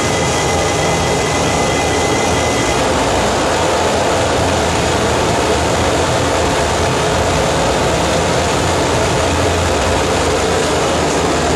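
Live harsh noise wall from a table of effects pedals and a mixer: a loud, dense, unbroken wall of distorted noise with a heavy low rumble. A high steady tone in it drops out about three seconds in.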